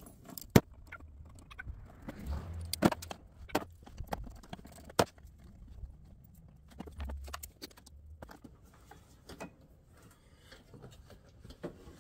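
Scattered clicks and knocks of a ratchet, sockets and plastic intake parts being handled at an engine bay, the loudest a single sharp clack about half a second in.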